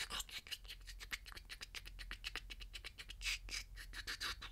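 Fine pointed tool scratching and picking caked dirt out of an iPhone 12's metal mesh earpiece grille: a quick, irregular run of small scratches and ticks, busier near the end.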